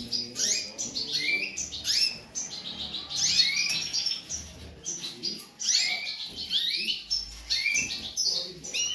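Domestic canary chirping: a quick string of bright, sweeping notes, several a second, with brief gaps.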